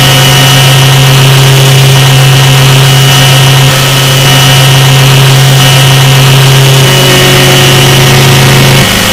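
Samsung logo audio, heavily distorted and boosted to clipping: a loud, steady low drone with many overtones that shifts slightly a few times.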